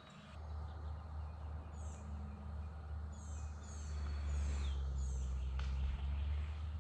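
Small birds chirping in short, repeated falling notes over a low steady rumble that comes in just after the start and grows louder around the middle.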